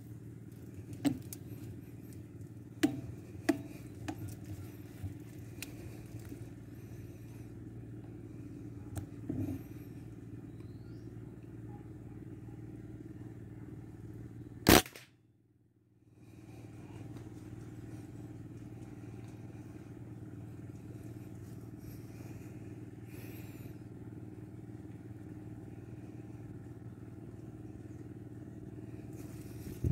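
A single sharp air rifle shot about halfway through, by far the loudest sound, which downs the duck. Before it come a few light handling clicks, all over a steady low hum.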